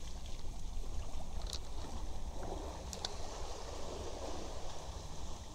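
Sea water lapping against the hull of a small wooden boat, over a steady low rumble. Two faint sharp clicks come about one and a half and three seconds in.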